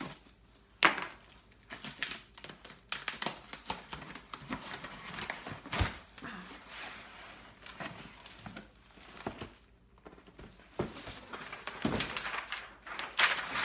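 A cardboard shipping box being opened by hand: the flaps are pulled apart with scrapes and knocks of cardboard, and packing paper crinkles as it is handled. There is a sharp knock about a second in, and the crinkling gets busier near the end.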